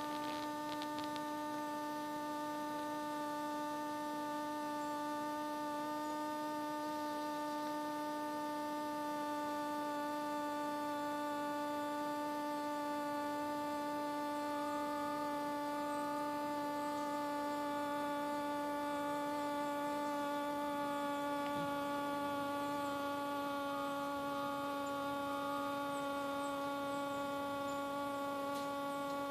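Hoverfly buzzing in flight: a steady, high hum with many overtones whose pitch wavers only slightly.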